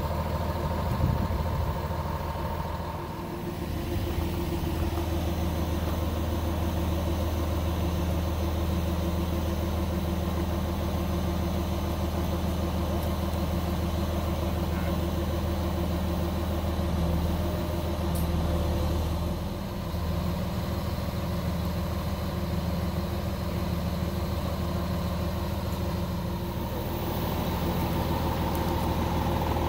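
Grove mobile crane's diesel engine running steadily while it holds and lifts a load, a deep even hum that dips briefly about three seconds in and again near twenty seconds.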